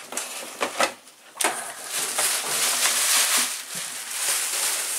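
A few light knocks, then from about a second and a half in a continuous crackly rustling and crinkling of bubble-wrap packing being handled.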